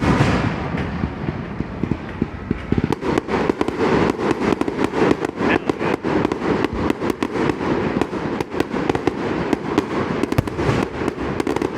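Aerial fireworks display: a loud bang at the start, then from about three seconds in a dense, rapid barrage of bangs and crackles.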